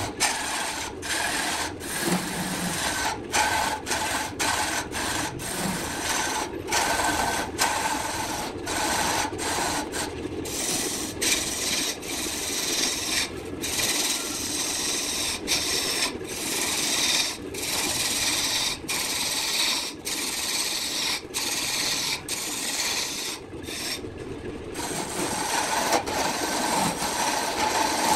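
Turning tool cutting a large spinning wood blank on a BURT wood lathe: a continuous rasping hiss of shavings tearing away, broken many times by brief gaps as the tool comes off the cut, with a longer break near the end.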